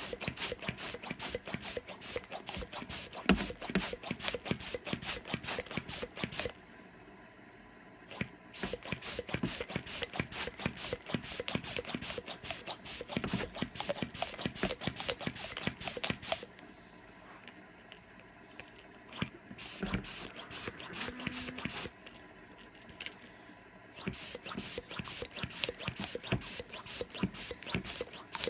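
Hand balloon pump worked rapidly, each stroke a hissing puff of air, several a second, blown at a fidget spinner to keep it spinning. The pumping comes in runs, with a pause of a couple of seconds about a quarter of the way in and a longer pause past the middle.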